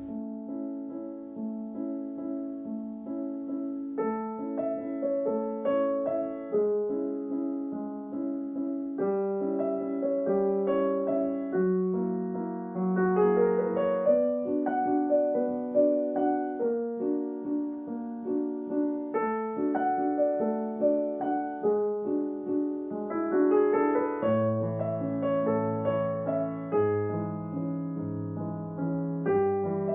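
Background music: a gentle solo piano piece in steady chords and melody, with lower bass notes joining about three-quarters of the way through.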